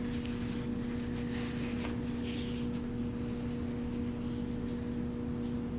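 Faint soft rustling of bulky yarn being handled while a tail is threaded onto a plastic yarn needle, over a steady low hum that is the loudest thing throughout.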